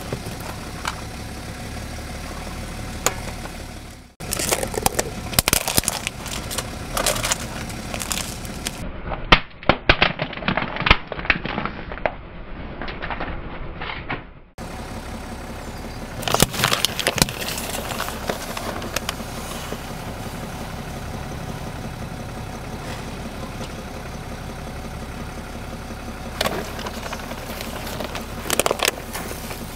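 A car tyre rolling slowly over small plastic objects on paving stones and crushing them, in several bouts of sharp cracking and crackling. The densest bout is in the first half. A car engine idles low underneath.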